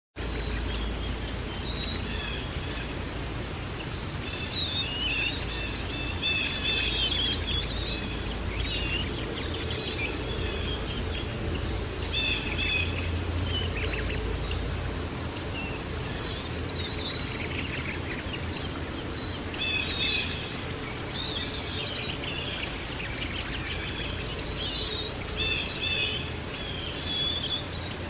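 Many small birds chirping and trilling in quick, overlapping calls over a steady background wash of noise, with a low rumble underneath in the first half. The sound cuts in suddenly from silence.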